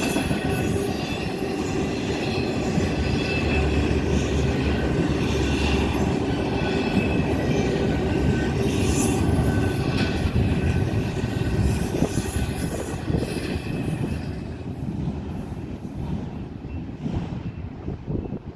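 Freight train of double-stack and piggyback intermodal cars rolling past: a loud steady rumble of steel wheels on rail, with a high wheel squeal over it. The sound fades away over the last few seconds.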